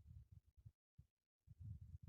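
Near silence with two short spells of low rumble from a light wind buffeting the microphone.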